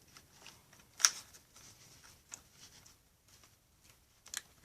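Faint handling noises of soldering work: a sharp click about a second in, another click near the end, and light scraping and ticking between, as a soldering iron, solder and small metal parts are worked by hand.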